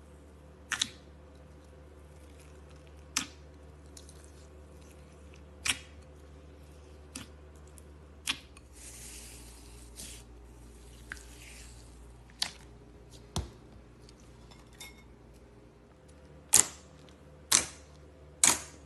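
Slime being squeezed and poked, giving sharp, wet pops of air pockets every second or two, the loudest three near the end, with a soft crackling hiss for a few seconds in the middle. A low steady hum runs underneath.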